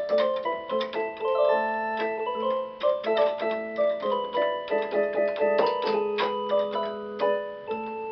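Electronic keyboard playing on its drawbar organ voice: held organ notes and chords moving through a quick line, with a sharp click at the start of many notes.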